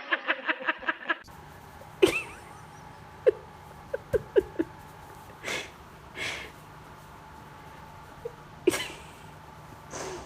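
A rabbit playing with a balloon: scattered short taps and pops, some in quick runs, and a few short breathy puffs. In the first second, a rapid even pulsing cuts off suddenly.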